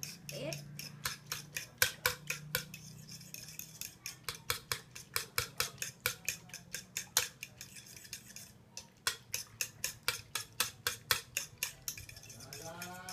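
A metal spoon whisking egg and water in a bowl, clicking against the bowl about four times a second, with a short break about two-thirds of the way through.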